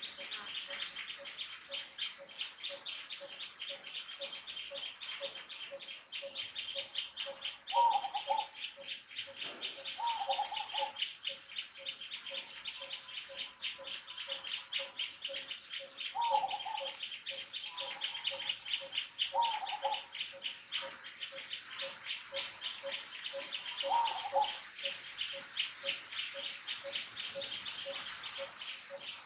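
Outdoor animal ambience. A rapid, even insect-like chirring runs through it, with a low note repeating about twice a second. Five short calls that bend in pitch are spread through.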